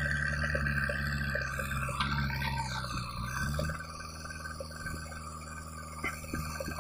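JCB 3DX backhoe loader's diesel engine working under hydraulic load with a whine from the hydraulics while the arm digs and swings. The engine speed dips and recovers about three seconds in, then eases off to a quieter running sound before four seconds. Small knocks are scattered through.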